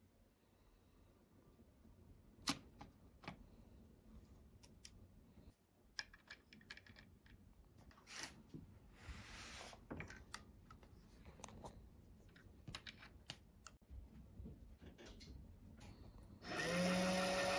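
Light clicks and taps of brass and primers being handled and a case being primed on a reloading press, then about a second before the end an electronic powder dispenser starts up, its motor running with a steady hum as it trickles powder into the pan.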